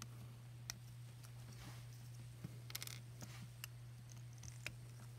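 Faint, scattered small clicks and snaps as the caps are pulled off the wire terminals of an old network patch panel, over a steady low hum.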